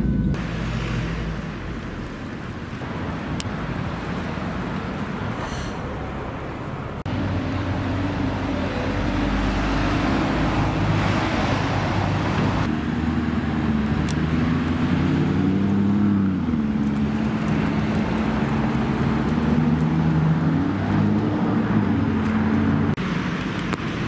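Sports car engines in city street traffic, heard across several short clips. A steady engine note with a rise and fall in pitch around the middle, as of light revving.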